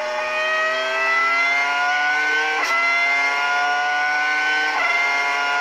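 Ferrari Formula 1 V10 engine at high revs under acceleration, its pitch climbing through the gears. It upshifts twice, about halfway through and near the end, and each shift drops the note before it climbs again.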